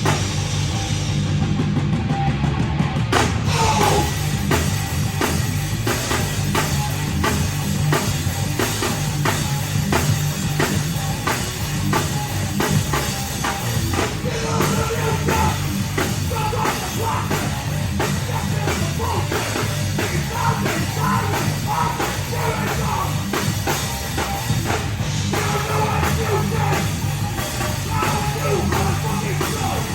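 A heavy rock band playing live and loud: distorted guitars and bass over a fast, steady drumbeat, with a pitched lead line coming in about halfway through.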